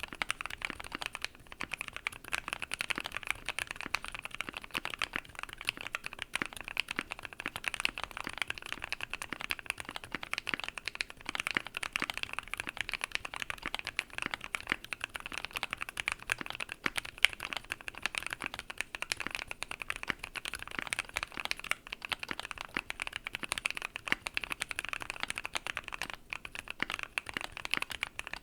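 Fast, continuous typing on a Keychron Q1 mechanical keyboard with Gateron Black Ink V2 linear switches and PBT keycaps: a dense run of key clicks and clacks, many per second.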